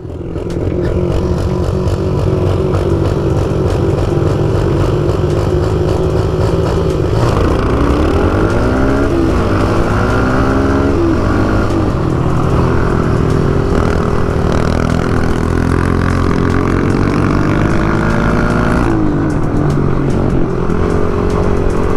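Small motorbike engine running under throttle while being ridden, its pitch rising and falling as it revs up and drops back several times between about seven and twelve seconds in.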